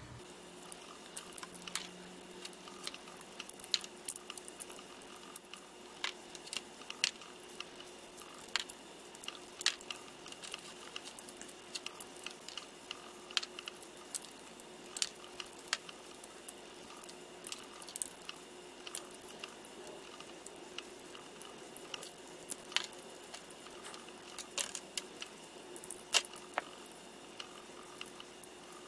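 Small screwdriver prying and picking inside a backup camera's casing to free the glued lens unit: irregular small clicks and scrapes, with a faint steady hum underneath.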